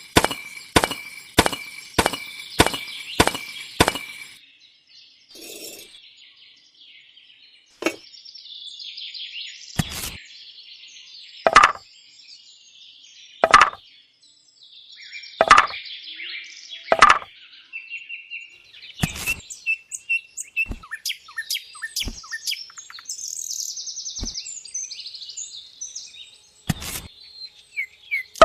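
Birds chirping throughout, over sharp knocks or taps. For the first four seconds the knocks come evenly, about two a second; after that they are single, a few seconds apart, and they are the loudest sounds.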